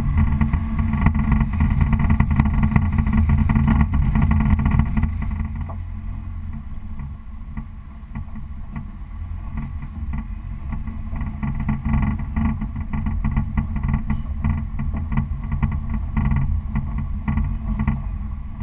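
Car driving on a dirt road, heard from a GoPro mounted on the outside of the car: a steady low engine and road rumble that gets quieter about five seconds in as the car slows.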